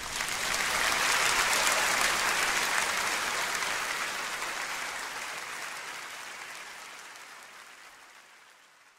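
Concert audience applauding at the end of a brass band piece. The applause swells within the first second or so, then fades away gradually.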